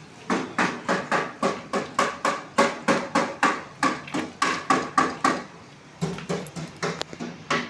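Repeated hammering, about three blows a second, each with a short ringing tone, stopping briefly about five and a half seconds in and then going on.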